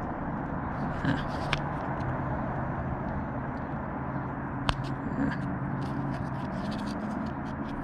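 A few small clicks and scrapes of a small flathead screwdriver prying at the plastic housing of a removed HVAC door actuator, with one sharp click a little past halfway, over a steady background hum.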